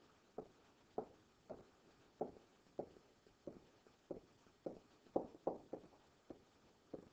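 Faint, short taps about twice a second: a stylus touching down and lifting off a writing surface as words are handwritten.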